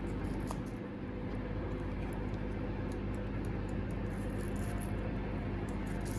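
A steady low hum of a running machine or appliance, with faint light clicks and rustles over it.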